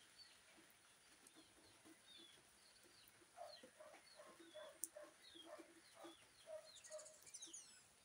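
Faint clucking of domestic hens, a quick run of short low clucks, about four a second, starting about halfway in, with small birds chirping throughout.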